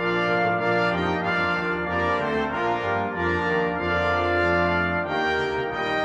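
Full orchestra playing, with brass to the fore: trombones, trumpets and horns come in loud at the very start and hold sustained chords over a moving low bass line.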